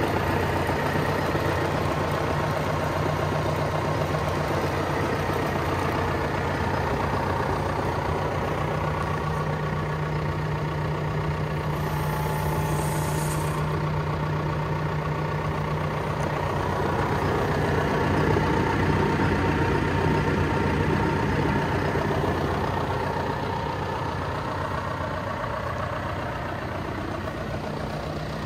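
John Deere 6125R tractor's diesel engine idling steadily, with a brief high hiss about twelve seconds in.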